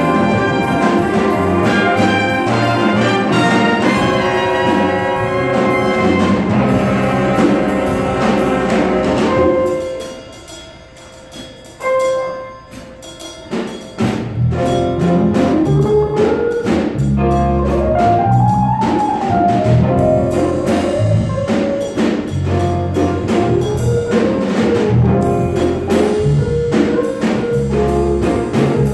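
Jazz big band playing live, full brass and saxophone section with rhythm section. About ten seconds in, the ensemble drops out to a quiet passage with a few isolated hits, then the band comes back in with a moving bass line and drums.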